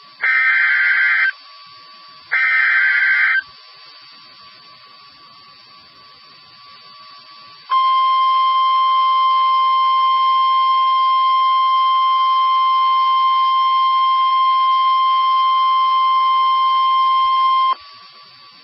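NOAA Weather Radio Emergency Alert System signal: two one-second bursts of the SAME digital header's buzzing data tones, then a few seconds of low hiss, then the steady 1050 Hz warning alarm tone for about ten seconds, cutting off suddenly. The signal heralds a severe thunderstorm warning.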